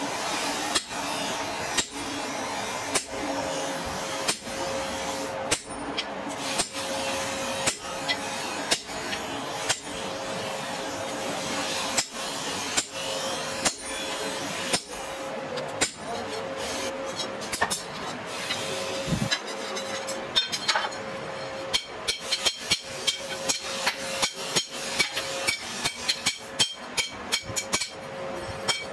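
Hammer blows on a hot-cut chisel driven through a red-hot steel truck leaf spring on an anvil, about one strike a second. The blows come faster, about two a second, over the last third.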